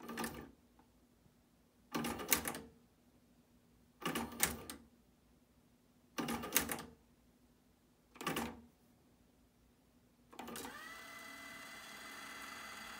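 Yamaha K-720 cassette deck's tape transport mechanism clunking five times, about every two seconds, as its transport buttons are pressed, each a quick cluster of clicks. About ten and a half seconds in, a steady motor whir with a thin high whine starts up, settling in pitch as it comes up to speed.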